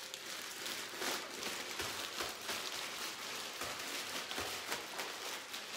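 Zip-top plastic bags full of food crinkling and rustling as they are squeezed and kneaded by hand to mix the ingredients, with a few dull thumps.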